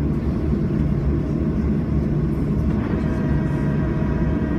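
Cabin noise of a Boeing 737-700 on the ground, its CFM56-7B jet engines running with a steady low rumble and hiss. Faint steady whining tones come in about three seconds in.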